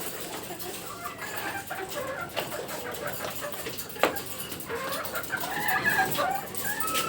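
Caged chickens clucking and calling in short, scattered notes, with small clicks and one sharp knock about four seconds in.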